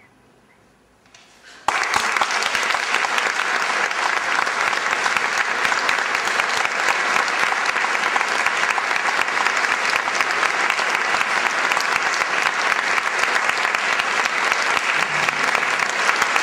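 After a short hush, audience applause breaks out suddenly about a second and a half in and goes on steadily.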